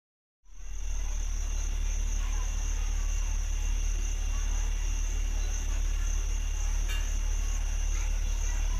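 Insects droning steadily at one high pitch over a constant low hum; the sound begins abruptly about half a second in.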